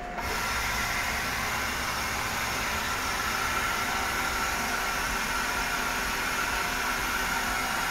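Mazak CNC lathe starting its drilling cycle: coolant spray comes on suddenly with a steady hiss while the spindle spins the chuck with a steady whine.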